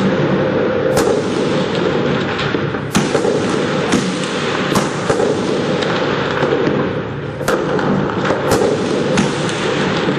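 Several irregular sharp cracks of gunfire during street combat, over a steady loud rumble that fits the tanks' diesel engines running.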